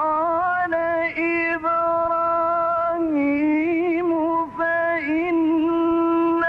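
A male Quran reciter's voice in the drawn-out, melodic mujawwad style, holding long notes with ornamented turns in pitch, broken by brief pauses for breath.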